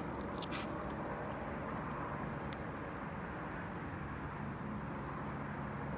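Steady, even outdoor background rumble with no distinct event in it.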